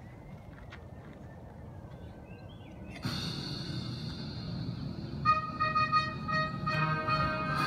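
Instrumental backing music over an outdoor PA speaker: the speaker comes on with a hiss about three seconds in, and held instrumental notes start about two seconds later.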